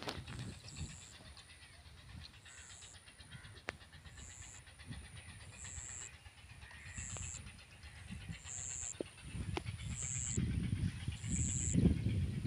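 Wind gusting on the microphone, stronger in the last few seconds, with a short high chirp repeating about every one and a half seconds.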